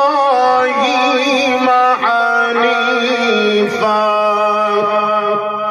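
A man reciting the Quran in the drawn-out melodic tajweed style: one long held line sung with wavering ornaments. About three and a half seconds in, the pitch steps down, and he holds the lower note to the end.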